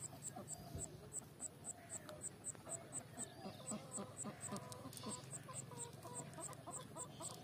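Outdoor ambience of a high insect chirp repeating steadily, about two and a half times a second, with faint bird calls underneath.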